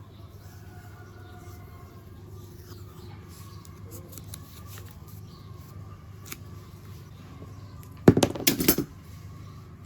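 Low steady hum with faint scattered ticks. About eight seconds in comes a short, rapid run of sharp clicks or snips, the loudest sound.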